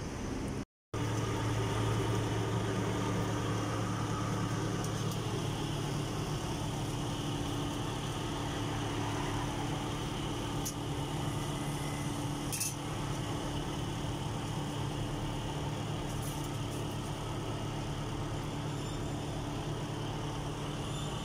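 An engine idling with a steady low hum over street background noise. A few light clicks and taps come around the middle.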